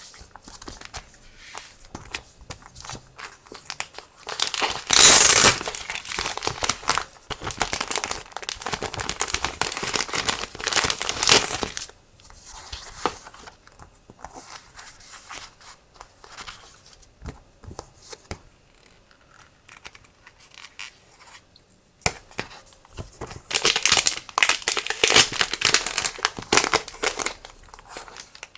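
Crinkling and rustling of paper and plastic packaging being handled and unwrapped, in irregular bursts. It is loudest about five seconds in and again near the end, with a quieter stretch in the middle.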